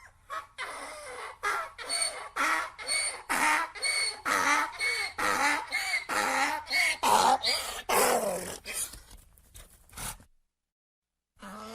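Donkey braying: a long run of rhythmic hee-haw cycles, about two a second, loudest a little before the end, then breaking off about ten seconds in.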